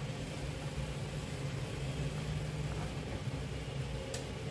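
Hot oil sizzling steadily around gulgule (jaggery and wheat-flour fritters) as they deep-fry in the pan, over a steady low hum, with a light click about four seconds in.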